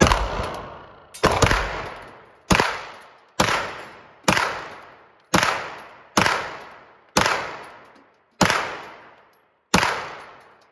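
Handgun fired ten times, roughly one shot a second, each loud crack followed by a long echoing decay off the walls of an indoor shooting range.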